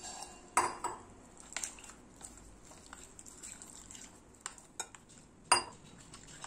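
Metal spoon stirring thick flour batter in a glass bowl, scraping and clinking against the glass several times. The sharpest clinks come about half a second in and near the end.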